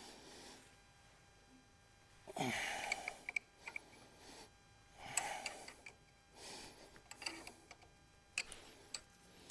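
Heavy strained breaths from someone working hard with hand tools, with a few sharp metal clicks of wrench on bolt in between.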